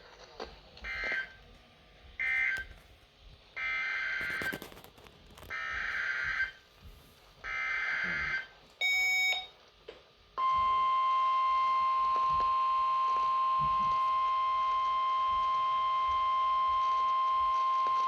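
Emergency Alert System data bursts over weather radio: three short screechy digital bursts, then three longer ones about a second apart, the SAME end-of-message and header codes. After a brief beep, a steady, loud single-pitch alert tone near 1 kHz begins about ten seconds in, the weather radio warning alarm tone that introduces a new warning.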